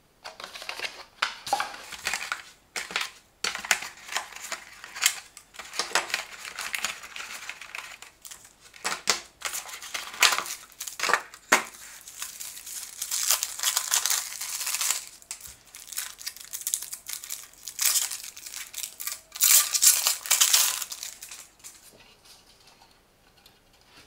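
Packaging being handled during unboxing: plastic wrapping and bags crinkling and rustling in bursts, with small clicks and knocks as parts are taken out and set down. It dies down near the end.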